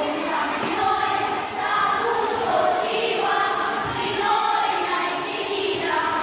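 A group of schoolchildren's voices chanting together in unison, choral recitation in Filipino with drawn-out, sing-song lines.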